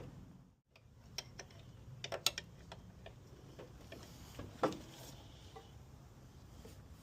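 Faint, scattered metallic clicks and taps of hand tools and parts being handled on an engine during alternator removal, with one louder knock about four and a half seconds in.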